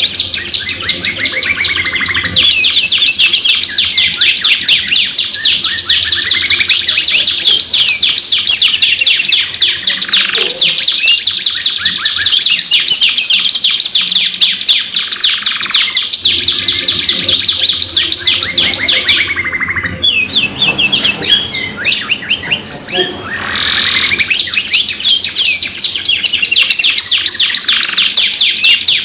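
Domestic canary singing a long, fast song of rapid rolling trills and chirps, nearly unbroken, with short pauses about twenty and twenty-three seconds in.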